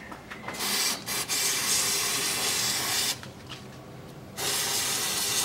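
Aerosol cleaner sprayed through a straw onto a rear differential housing, washing off spilled gear oil: two long hissing bursts, the first about two and a half seconds long, the second starting near the end.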